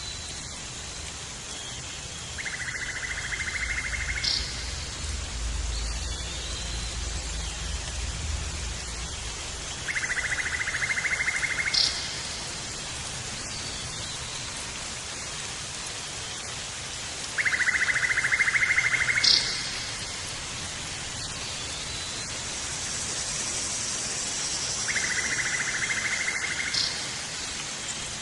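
A steady outdoor hiss with a rapid trilling call, about two seconds long, repeated four times roughly every seven seconds, each trill followed by a short higher note.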